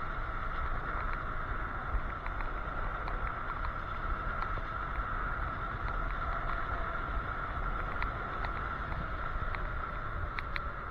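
Electric scooter riding on a paved road: a steady low rumble of wind and road vibration on the handlebar-mounted microphone, with a steady high whine and scattered light clicks and rattles, which come more often near the end.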